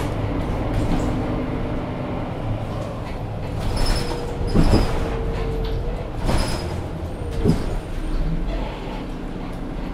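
Mercedes-Benz O530 Citaro Facelift city bus's diesel engine and ZF Ecomat automatic gearbox running steadily. From about four seconds in, a handful of sharp knocks and brief whines cut through, one of the whines falling in pitch near the end.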